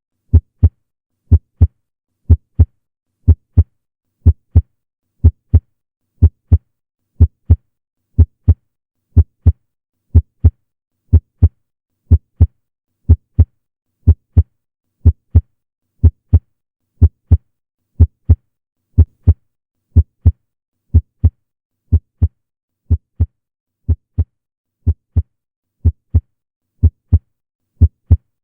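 Normal heart sounds: a steady lub-dub, each beat a pair of short low thumps close together, about one beat a second with silence between beats.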